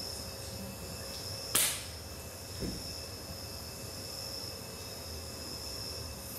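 A single sharp slap-like crack, then a softer thump about a second later, as a barefoot dancer drops from standing to her knees on a wooden floor, over a faint steady hum.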